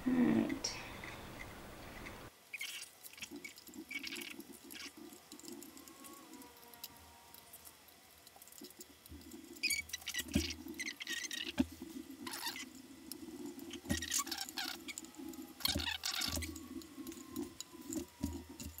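Long-nosed pliers and wire leads clicking and scraping against the amplifier's metal chassis as a wire is bent and fitted into place: irregular small clicks and rustles, busiest about halfway through and again near the end.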